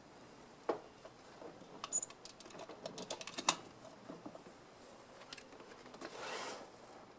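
Irregular light clicks and small rattles, with a quick run of ticks in the first half and a short rustle near the end.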